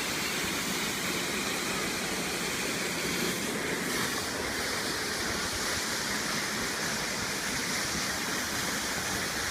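Waterfall pouring steadily: an even, unbroken rushing of falling water.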